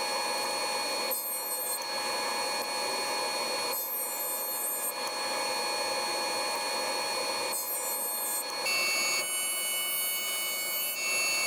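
Woodworking machines running steadily: a Powermatic jointer's motor and cutterhead, then from about nine seconds in a Delta thickness planer as a board is fed into it for milling.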